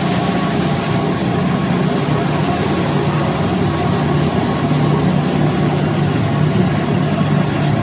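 Carpet-washing machinery running steadily: a low hum under an even hiss, with no change in level.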